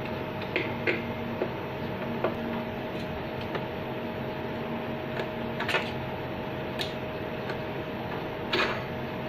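Scattered small metallic clicks and taps of a Phillips screwdriver working the screws of a telecom indoor unit, a few sharper ones past the middle, over a steady electrical hum with a constant tone.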